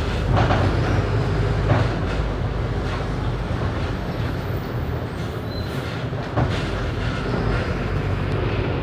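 Mercedes-Benz OF 1519 city bus with a Marcopolo Torino body running, its front-mounted diesel engine giving a steady low rumble under road and body noise, with a few sharp knocks and rattles, one about a second and a half in and another near six and a half seconds.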